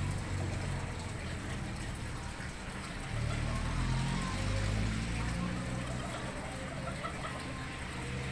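A low engine hum from a motor running somewhere off-picture, growing louder about three seconds in and then easing off.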